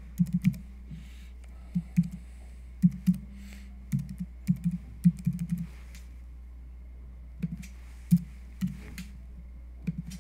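Computer keyboard typing: irregular keystrokes while an email address is typed, with a pause of about two seconds a little past the middle. A steady low hum runs underneath.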